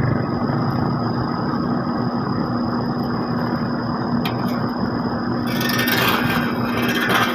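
Heavy road-paving machinery engines running steadily with a constant hum. A hissing noise joins about five and a half seconds in.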